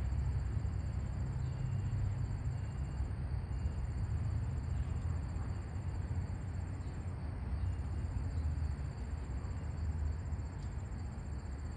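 Steady rumble of road traffic from a nearby busy street, with a thin high insect trill that pauses briefly twice.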